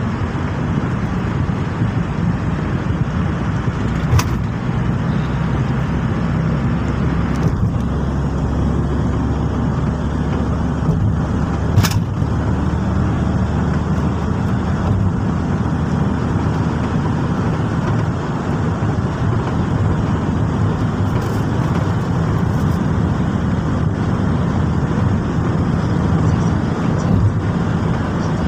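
Car cabin noise while driving: steady engine and road rumble, heard from inside the car. Two brief sharp clicks, one about four seconds in and one about twelve seconds in.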